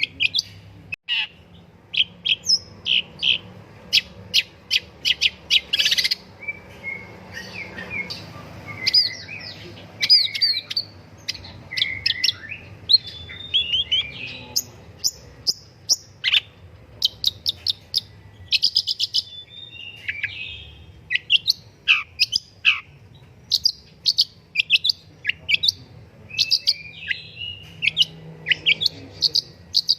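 Long-tailed shrike (pentet) singing energetically: runs of sharp, quick chirps and scratchy notes in bursts with short pauses, with a few downward-sweeping notes about two-thirds of the way through.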